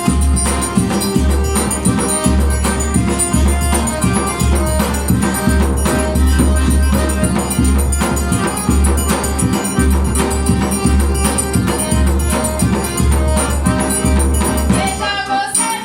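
Forró band playing an instrumental passage: accordion (sanfona) melody over the low beats of a zabumba bass drum and a ringing triangle keeping time. The drum drops out briefly near the end.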